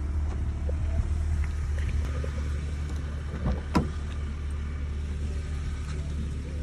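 Car engine idling with a steady low hum, and a single sharp knock a little under four seconds in.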